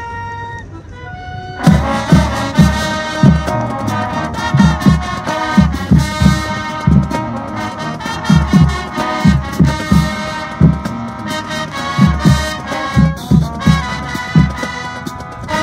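Marching band brass and percussion playing: soft held notes, then about a second and a half in the full band comes in loud with brass chords over regular heavy drum hits.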